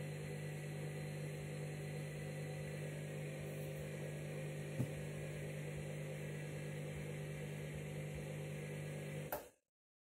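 Candy front-loading washing machine running a wash on its bleaching cycle: a steady motor hum as the drum turns through heavy suds, with a single click about halfway. The hum cuts off suddenly near the end.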